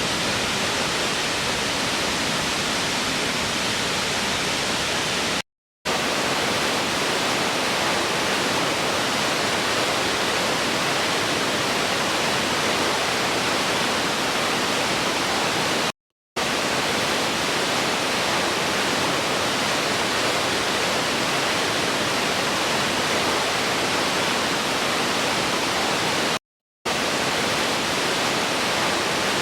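Waterfall rushing in a steady, even roar, broken three times by brief gaps of complete silence.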